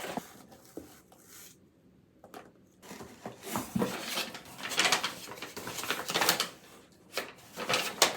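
Brown kraft packing paper rustling and crinkling as it is handled, in irregular bursts. It is quiet for a moment, then the rustling picks up from about three seconds in.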